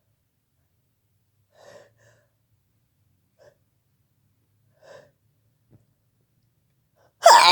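A person's faint, short intakes of breath, three or four of them spaced a second or two apart, building up to a loud sneeze near the end.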